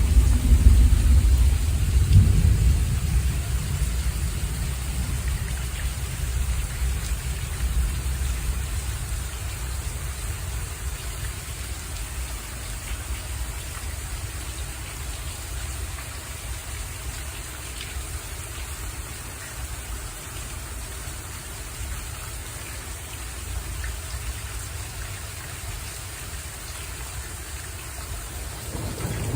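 Steady rain with rolling thunder: a low thunder rumble dies away over the first several seconds, leaving an even hiss of rain, and a new rumble begins right at the end.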